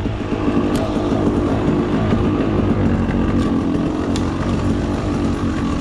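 Off-road motorcycle engine running with a fast, even beat, with a few light clicks over it.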